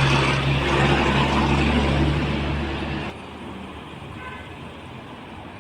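A large road vehicle's engine runs loudly with a steady low hum and then cuts off abruptly about three seconds in. Quieter roadside traffic noise remains after it.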